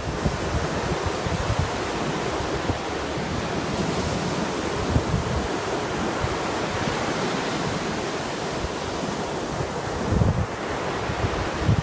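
Caspian Sea surf washing in steadily, with wind buffeting the microphone in low rumbling gusts, strongest near the end.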